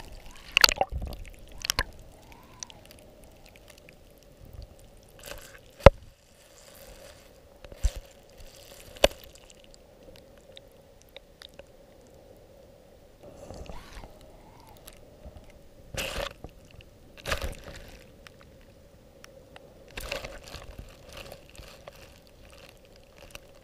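Audio from a camera held underwater among rocks and seaweed: a faint steady hum with scattered sharp clicks and knocks, about a dozen over the span, as the camera bumps and scrapes against the bottom.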